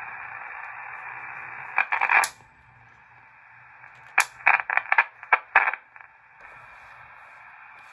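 Heathkit HW-100 tube transceiver receiving band noise through its speaker as the main dial is tuned: a steady, narrow-band hiss, quieter after about two seconds. Short crackles and pops come around two seconds in and again in a cluster from about four to six seconds.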